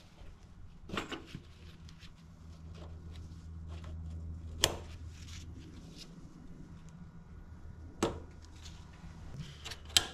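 Scattered clicks and knocks of gloved hands fitting lines and connectors onto the top of a new fuel pump module on a pickup's fuel tank, the sharpest about halfway through, over a steady low hum.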